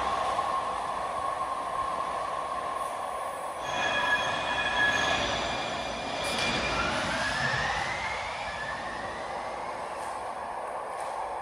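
Muni Metro Siemens LRV4 light-rail train braking to a stop, with a steady motor whine; about four seconds in, several high steady squeal tones come in as it halts, followed by a rising whine.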